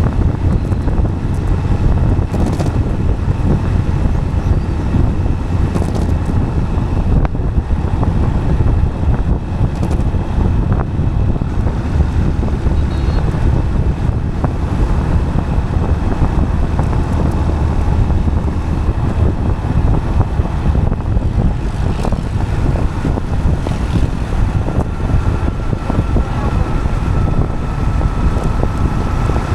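Steady wind buffeting on the microphone over a low road rumble from rolling on asphalt, with a faint thin steady tone joining near the end.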